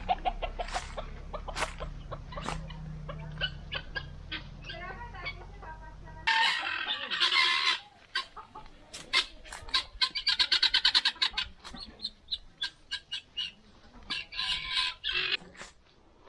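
Chickens clucking in short, repeated notes, with three louder, drawn-out calls about six, ten and fourteen seconds in.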